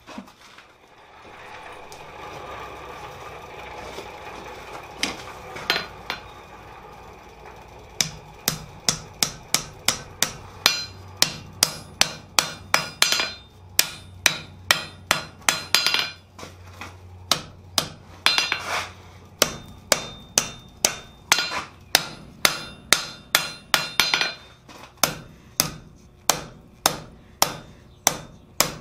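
Blacksmith's hand hammer striking a red-hot steel bar on an anvil, drawing out the jaws of a pair of tongs. After a few seconds of steady rushing noise, the blows begin and come about two a second, in runs with short pauses.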